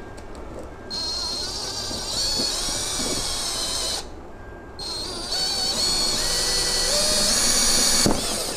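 Power drill boring a hole through a plastic car door trim panel, running in two spells of about three seconds each with a short stop between. Its whine wavers in pitch as the bit bites into the plastic.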